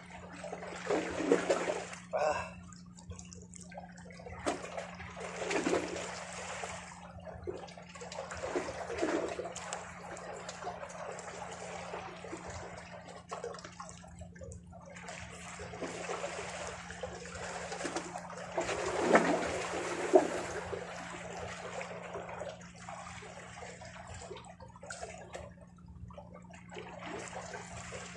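Small sea waves washing and sloshing against the shoreline rocks, swelling and fading every few seconds, with a single sharp click during the loudest surge.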